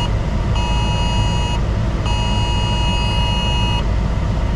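Wireless emergency alert tone from a phone, beeping in long pulses of about a second, a second, then nearly two seconds with short gaps, and stopping near the end: the alert for a tornado warning being extended. Under it a steady low rumble in the truck cab.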